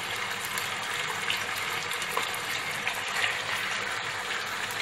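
Raw chicken pieces frying in hot oil in a kadhai: a steady sizzling hiss with fine crackling.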